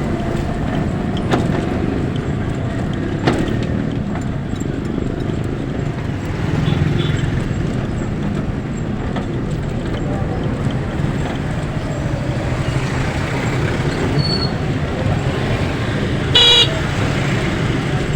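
Steady traffic and vehicle engine noise on the road, with one short vehicle horn toot near the end.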